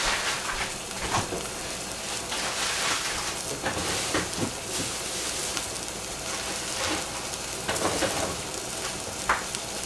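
Oyster mushrooms sizzling in oil and a little soup stock in a stainless saucepan: a steady hiss with scattered pops and crackles.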